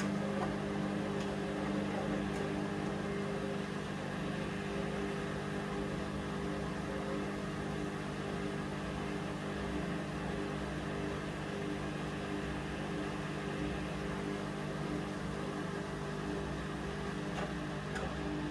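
Hoover Vision Dynamic washing machine running mid-cycle with a lights load, a steady motor hum with a few faint ticks.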